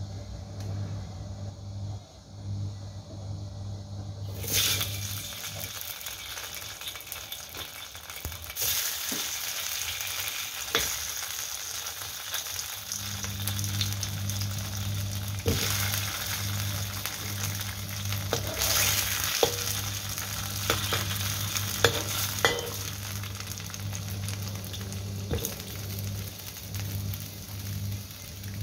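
Slices of Chinese New Year cake pan-frying in hot oil in a wok. The sizzle starts about four seconds in as the first slice goes into the oil and grows louder in steps as more slices are added, with occasional light knocks and clicks over a steady low hum.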